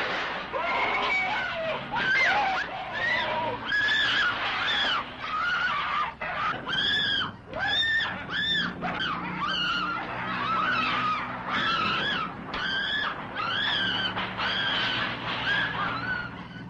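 A long run of high-pitched shrieks, one after another, each rising and falling in pitch, over a low steady drone.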